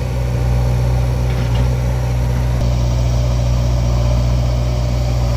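Diesel engine of a backhoe loader or farm tractor running steadily, with an even low-pitched drone and no revving.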